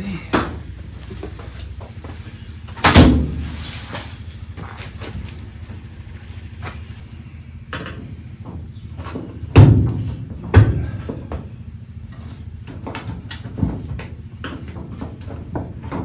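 Handling an LG top-load washer's metal cabinet: a loud thump about three seconds in as it is stood upright, then two more knocks near the middle and a lighter one later. Between them come short scrapes and clicks of a metal putty knife on the washer's top edge.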